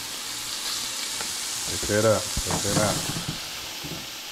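Black sea bass fillets sizzling steadily as they sear in a frying pan. A short vocal sound from the cook breaks in about two seconds in and is the loudest part.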